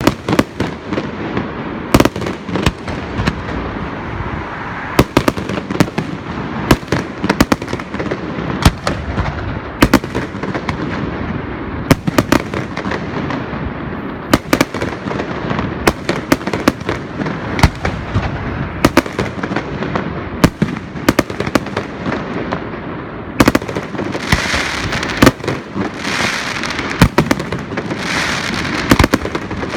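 Aerial fireworks going off: a continuous rumble of launches and bursts with sharp bangs, often one or two a second. About three-quarters of the way through, a crackling hiss from crackle effects joins in.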